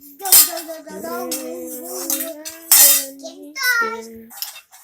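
Singing in long held notes, with a few sharp clatters of kitchenware, the loudest a third of a second in and near three seconds in.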